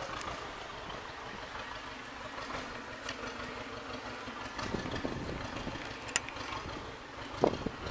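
Light metal clicks and knocks as the MTZ-80's gear-shift linkage rod and ball-joint end are handled, over a steady low rumble; a sharp click about six seconds in and a heavier knock near the end.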